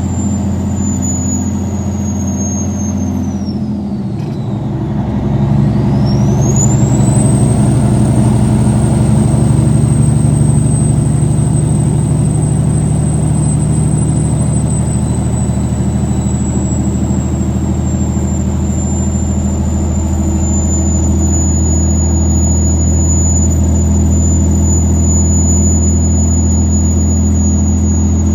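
Caterpillar 3406B inline-six diesel running with a steady high turbocharger whistle over the engine's hum. About three seconds in, the whistle falls in pitch as the engine eases off, then rises again as it picks back up. After that it holds high, slowly drifting a little lower.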